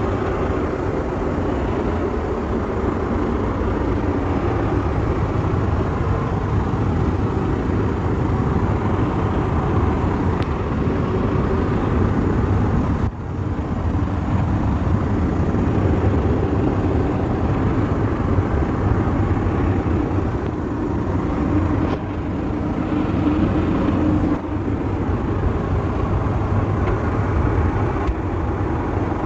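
Steady cabin noise of an Airbus A320 in cruise: an even roar of engines and airflow, broken by a few brief dips.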